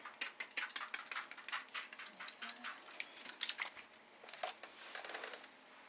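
Clothes iron sliding back and forth over a diamond painting canvas, making a quick, irregular run of light clicks and ticks that thins out near the end.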